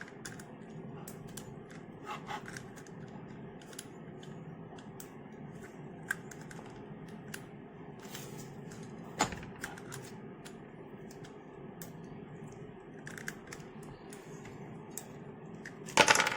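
Scattered, irregular plastic clicks and clacks of a 2x2 magnetic speed cube being handled and loosened, with a louder burst of clicks near the end.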